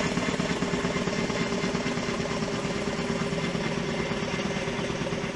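Kaman K-MAX helicopter in flight: a steady, fast beat from its intermeshing rotors over the even hum of its turboshaft engine.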